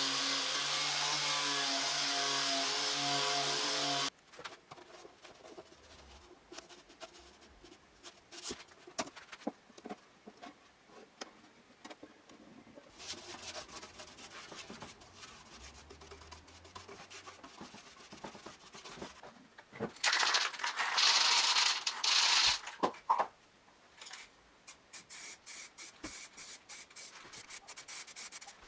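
A power tool motor running steadily, then cutting off suddenly about four seconds in, followed by scattered light workshop knocks and taps. Later come two loud bursts of rushing noise lasting a couple of seconds, then rapid ticking near the end.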